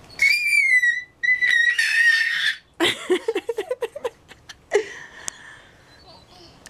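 A toddler squealing with delight: two long, high-pitched squeals, then a run of quick giggles about three seconds in.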